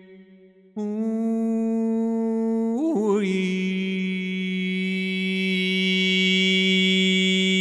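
A man's voice intoning one long held note, hum-like and rich in overtones, as in mantra chanting. It comes in abruptly after a short break at the start, wavers and drops slightly in pitch about three seconds in, then holds steady.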